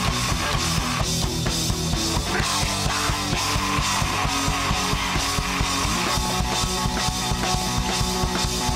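Rock band playing live, with drum kit, bass guitar and electric guitar keeping a steady beat.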